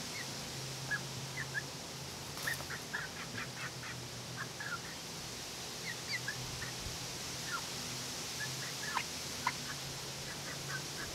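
Young backyard hens making short, soft chirps and clucks, scattered throughout, over a steady low hum, with a brief rustle about two and a half seconds in.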